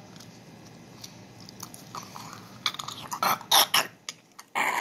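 Mouth sounds of a person biting into and chewing a jelly fruit candy: quiet at first with faint clicks, then several short, noisy bursts in the second half and a louder one near the end.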